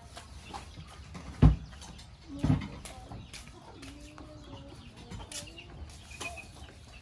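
A chicken clucking, with wavering drawn-out calls for a few seconds, preceded by two loud thumps about a second apart.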